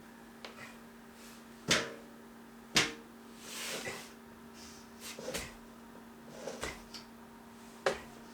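Three sharp knocks, with softer knocks, rustles and a brief rushing noise in between, in a small room over a steady low hum.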